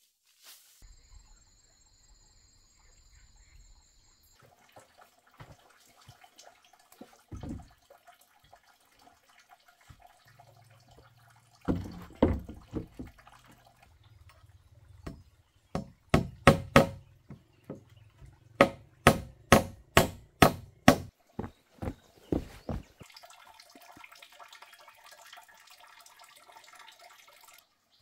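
A run of sharp knocks, scattered at first, then a quick series of strikes about two a second, stopping a few seconds before the end.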